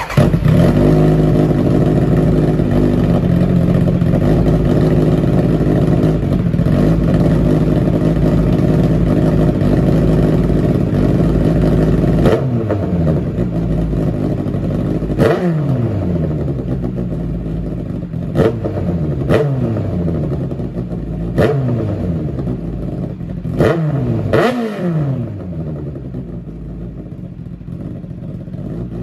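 Kawasaki Ninja ZX-9R's inline-four engine breathing through an SC Project slip-on silencer: it idles steadily for about twelve seconds, then is revved in about seven sharp throttle blips, the revs falling back to idle after each.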